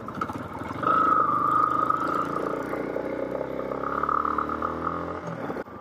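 Motorcycle engine pulling away, revving up about a second in, then holding and easing off slowly. The sound drops out abruptly just before the end.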